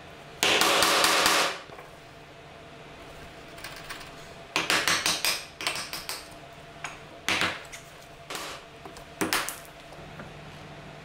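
Steel chisel being driven by hand into the waste between dovetail tails in hardwood, in quick sharp taps. A dense run of strikes comes about half a second in and lasts about a second. Another flurry follows around four and a half seconds in, then a few single taps.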